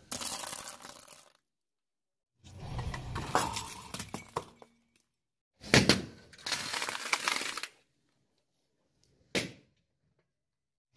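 A car tyre rolling over small objects on concrete and crushing them: crunching, cracking and breaking in four separate bursts with dead silence between. The loudest is a sharp crack a little past the middle, and the last burst is a brief crack near the end.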